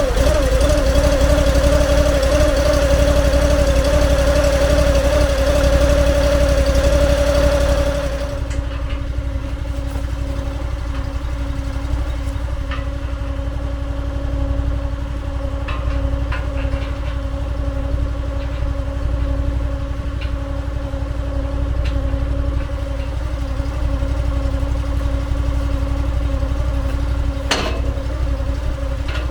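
Honda GX800 V-twin engine on a log splitter running just after starting, warming up. It runs louder at first, drops to a quieter steady run about eight seconds in, and there is a single sharp click near the end.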